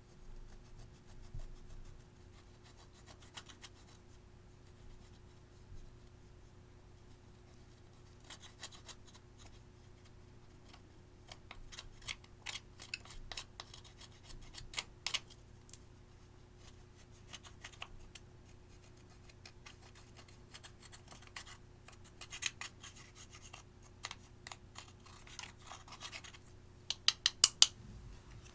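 Slime and eyeshadow being worked by hand: intermittent sticky crackling, clicking and scraping, with a quick run of sharp clicks near the end.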